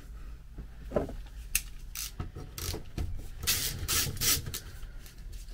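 Socket ratchet clicking in short strokes while undoing the fasteners that hold a VW Beetle wiper motor to its frame. A few single clicks come first, then a quick run of ratcheting strokes a couple of seconds in.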